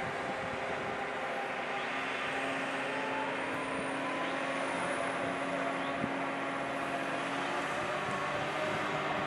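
Diesel engine of a mobile crane running steadily as it lifts a tower-crane jib section. Its note shifts slightly near the end.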